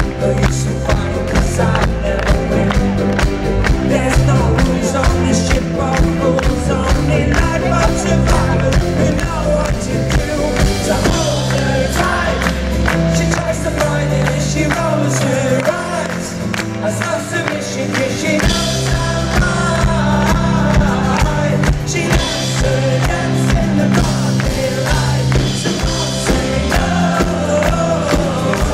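Live pop-rock band playing: strummed acoustic guitar, drums keeping a steady beat, and bass. The bass drops out for a few seconds midway, then comes back in.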